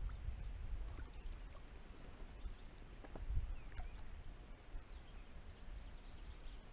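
Lake ambience around a float tube: a low rumble of wind on the microphone and water moving against the tube, with a few faint ticks and one faint bird chirp about three and a half seconds in.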